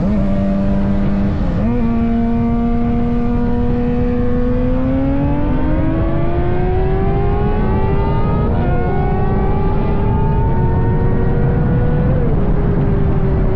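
Suzuki GSX-R 750 inline-four engine under way, its pitch climbing slowly as it accelerates and dipping briefly twice, about nine seconds in and near the end, over a steady noisy rush.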